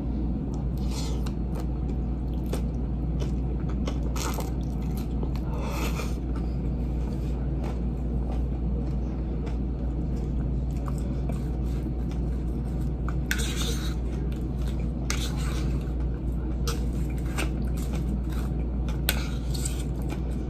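Wet chewing and crunching of a mouthful of spinach salad with bean sprouts and ranch, with short clicks and scrapes of a plastic fork in the salad bowl, over a steady low hum.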